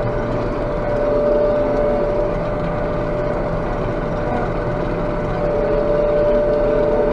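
Claas Jaguar 830 self-propelled forage harvester running steadily while it chops grass, heard from inside the cab: a constant engine drone with a steady high whine over it.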